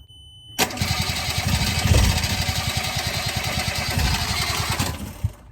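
Yanmar 3GM30F three-cylinder marine diesel being cranked on its starter, with a fast, even chugging pulse, for about four and a half seconds and then stopping abruptly. It is a hard-starting engine that won't catch. A steady beep from the engine panel's alarm ends as cranking begins.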